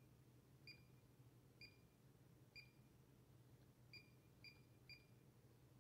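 Fluke 279 FC multimeter's key beep sounding at each button press: six short, high beeps, faint and unevenly spaced, with a steady low hum underneath.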